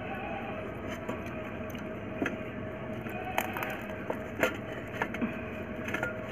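A hand picking up and handling a samosa right beside the phone's microphone: a few scattered short taps and clicks over a steady background hum.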